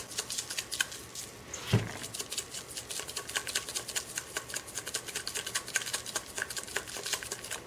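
Seasoning shaker shaken in quick strokes, dry rub granules rattling and pattering onto a prime rib roast, about seven or eight light ticks a second. One louder knock about two seconds in.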